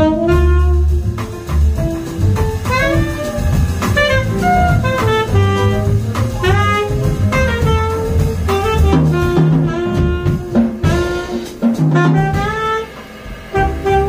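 Background jazz music with a saxophone playing the melody over a low bass line.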